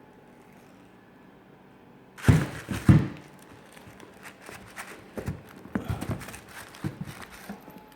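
Handling a sneaker in its box: a couple of loud thumps about two seconds in, then scattered light knocks and paper rustling as the shoe is lifted out and turned over.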